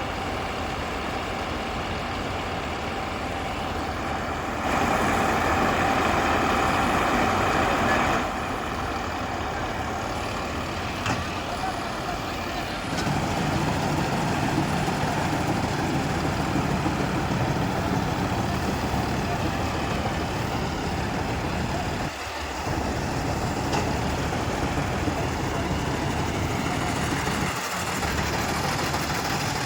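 John Deere combine harvester running steadily with a continuous mechanical drone. It grows louder for a few seconds about five seconds in and again from about thirteen seconds in, with two brief dips near the end.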